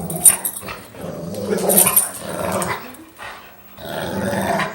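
Two dogs growling in play over a plastic ring, in long growls with a short break about three seconds in.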